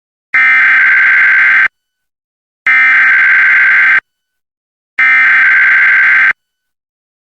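Emergency Alert System SAME header: three identical bursts of high-pitched digital data tones, each about a second and a quarter long with about a second's gap between them. The bursts are the coded opening of an EAS Required Monthly Test.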